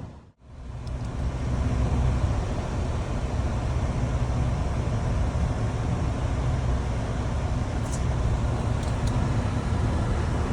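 Steady low rumble of a car's engine and road noise heard from inside the moving car, with two faint brief ticks near the end.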